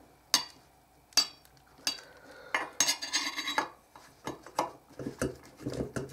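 Screwdriver and pliers tightening the screw and nut that clamp a power resistor to a heatsink: sharp metal clicks, a scraping stretch of about a second near the middle, then a run of small clicks and scrapes.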